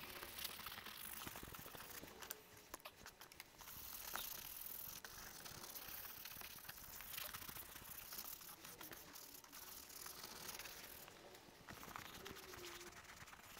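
Bristle brush scrubbing leather cleaner cream into a leather car seat: faint, scratchy rustling strokes with many small ticks.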